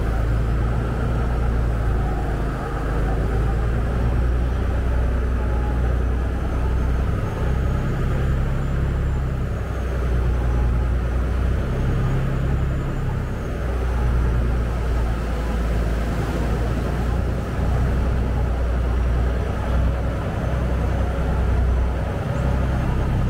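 Engine of a Saen Saep canal express boat running under way, a loud, steady low drone with a broad rush of noise over it.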